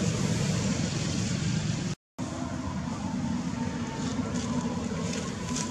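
Steady, rumbling outdoor background noise, cut off by a brief dropout about two seconds in.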